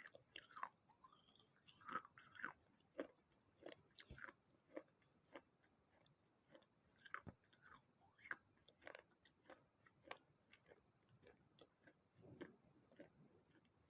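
Crunching and chewing of pieces of unglazed clay pot and clay saucer in the mouth: irregular sharp crunches and crackles, thickest in the first few seconds and more spaced out afterwards.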